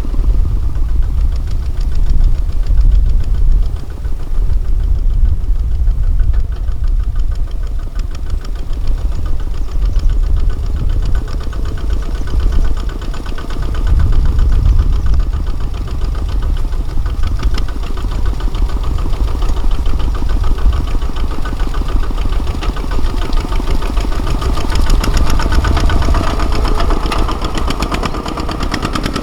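Kubota ZT155 single-cylinder diesel engine of a mini tractor running steadily while ploughing, a loud engine sound with rapid, even firing pulses.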